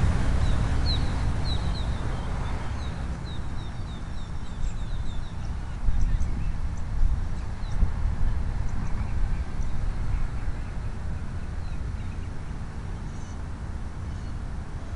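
Wind buffeting the microphone in a steady low rumble, with a bird chirping a quick run of short, high notes during the first few seconds and a few scattered chirps later.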